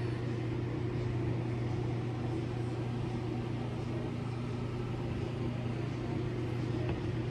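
Steady low electrical hum with a light hiss over it, unchanging throughout.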